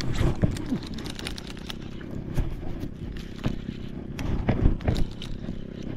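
A baitcasting rod cast right at the start, then the baitcasting reel being wound in, with irregular sharp clicks and handling noise over a low steady rumble.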